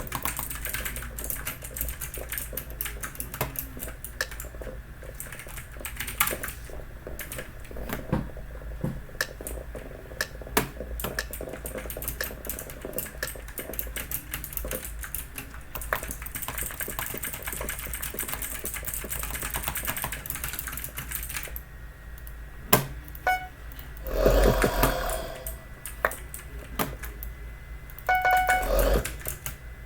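Fast, continuous typing on a Logitech mechanical keyboard with clicky switches, Logitech's version of blue switches: a dense run of irregular key clicks. Two louder, brief noises break in about 24 and 28 seconds in, the second with a short pitched tone.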